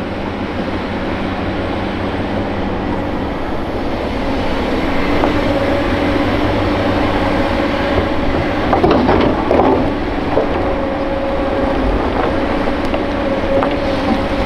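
Hitachi Zaxis 470 LCH excavator working: its diesel engine running steadily under load, a steady whine joining about five seconds in, and a short burst of clatter and scraping about nine seconds in.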